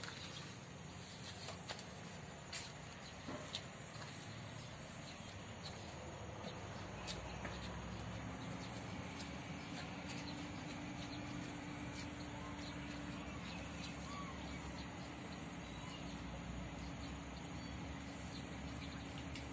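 Steady high-pitched chirring of insects, crickets, with scattered light clicks and taps. From about eight seconds in a low steady hum joins.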